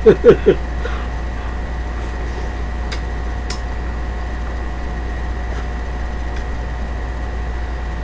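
A short run of loud, quick vocal sounds right at the start, then a steady low hum with faint steady tones from the live-stream audio, broken only by two faint clicks about three seconds in as metal chopsticks touch the food and plastic tub.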